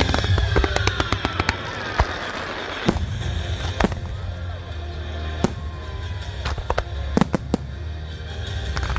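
Aerial fireworks going off: a quick flurry of sharp reports in the first second and a half, then single bangs every second or so, with music playing underneath.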